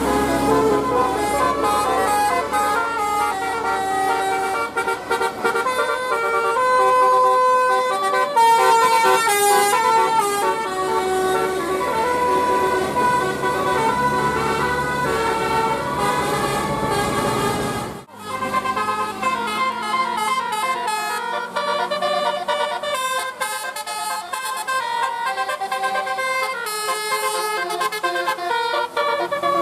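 Bus 'telolet' multi-tone air horns playing quick melodic tunes, note stepping after note in steady held tones. A sudden break about 18 seconds in, after which another horn tune starts.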